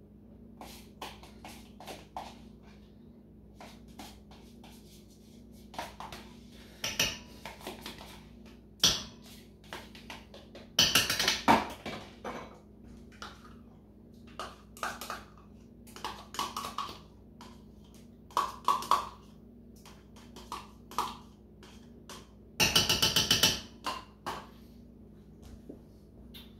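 Knocks, taps and scrapes of a plastic measuring cup and utensils against a stainless-steel stockpot as sour cream is scooped and emptied into the soup, with two longer rattling clatters about eleven and twenty-three seconds in. A faint steady hum runs underneath.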